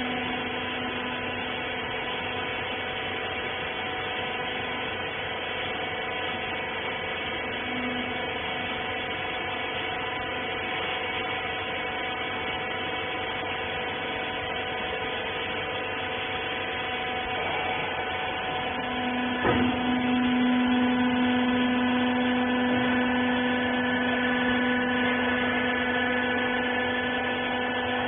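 Hydraulic rag baler's electric motor and pump running with a steady hum. About two-thirds of the way through there is a click, after which a lower hum joins in and the sound gets louder.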